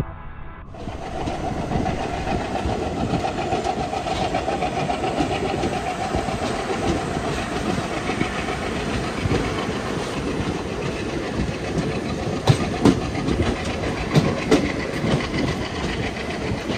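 Passenger train running on the rails, heard from on board: a steady rumble of wheels on track that starts just under a second in, with a few louder clacks from about twelve seconds in.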